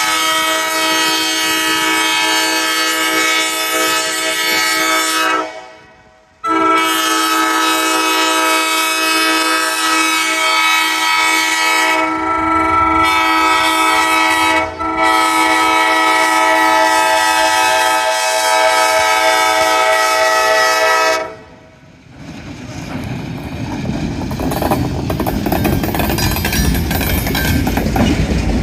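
1952 Alco RS-3 diesel locomotive's air horn blowing for a road grade crossing: three long chords of several seconds each, the last two split by only a brief break. Then the locomotive's engine and wheels rumble louder as it rolls past close by, with clickety-clack over the rail joints.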